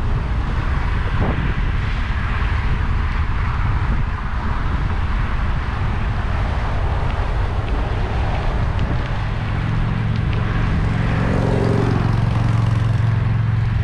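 Wind buffeting the microphone of a bike-mounted camera while cycling into a headwind, a steady dense rumble. In the second half a low engine-like hum builds up and grows louder near the end.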